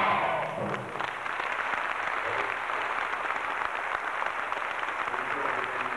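A group's sung chant ends in the first second, then an audience claps steadily.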